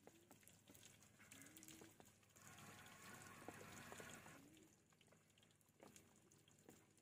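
Near silence, with a faint hiss for a couple of seconds in the middle and a few light clicks.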